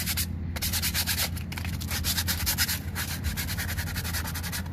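Used brake pad being sanded by hand with folded sandpaper in quick back-and-forth strokes, about five a second, to smooth away the rings and grooves that a worn rotor cut into its friction surface.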